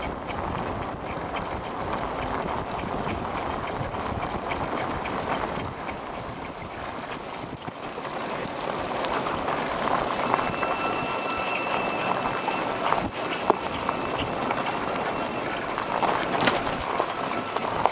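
Royal Enfield motorcycles riding along a dirt road, recorded from a moving bike. There is a steady rush of wind noise on the microphone over the engines.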